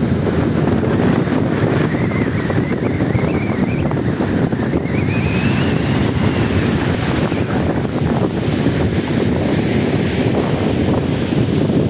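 Strong wind buffeting the microphone over the steady wash of storm-driven sea waves on the shore. A faint wavering high whistle rises and falls in the middle.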